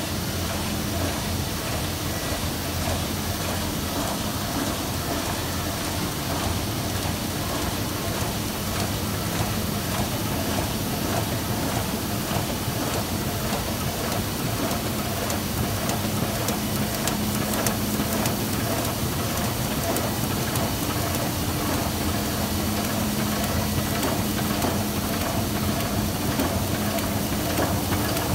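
MAN Roland R 204E four-colour sheetfed offset press running, a steady mechanical noise with a low hum.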